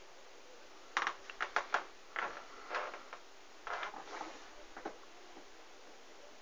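A scatter of light clicks and knocks, about a dozen of them between one and five seconds in.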